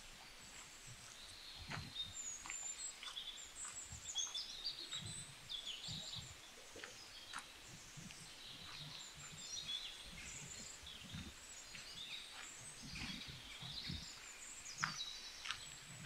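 Several small songbirds chirping and twittering in overlapping high trills, with scattered soft low thumps and clicks underneath.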